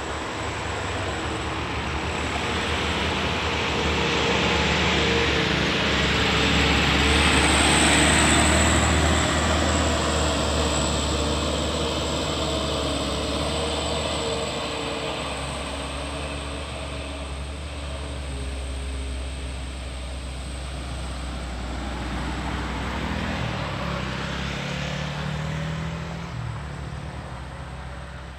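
Diesel engine of a light truck labouring up a steep, sharp uphill bend. It grows louder to a peak about eight seconds in and eases off, then swells again with rising pitch near the end.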